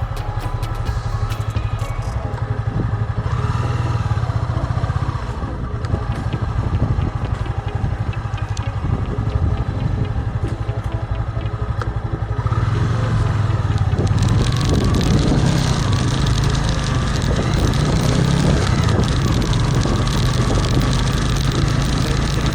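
Vehicle engine running while under way, a steady low hum, with wind and road noise growing louder about fourteen seconds in.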